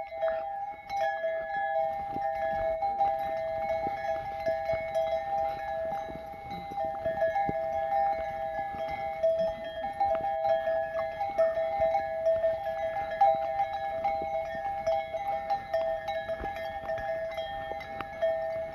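A flock of sheep and goats on the move, with scattered short knocks like hoof steps, over a steady two-note tone that holds unbroken throughout.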